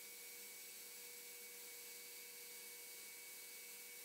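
Near silence: a faint, steady hiss with a light hum.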